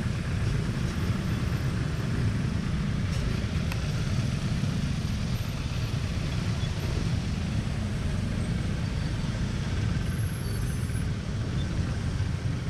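Steady low rumble of a scooter ride in slow, heavy traffic: the Yamaha NMAX scooter's engine and the motorcycles and cars around it, even throughout with no distinct events.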